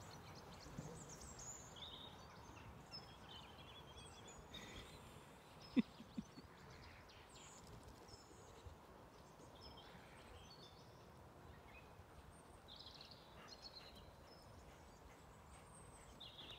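Quiet rural ambience with faint, scattered small bird chirps. About six seconds in, one brief sharp sound is followed quickly by two fainter ones.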